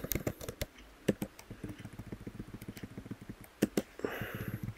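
Computer keyboard keys clicking in scattered strokes as a line of code is typed, with a short breathy hiss about four seconds in.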